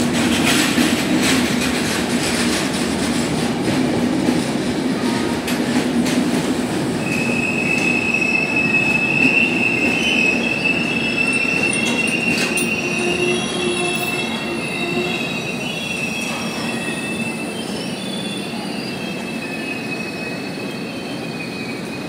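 Express train's passenger coaches rolling slowly past on the track with a steady low rumble. A high, steady wheel squeal sets in about a third of the way through and fades away after several seconds.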